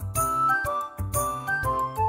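Background music: a light, bright melody of short held notes over a steady beat.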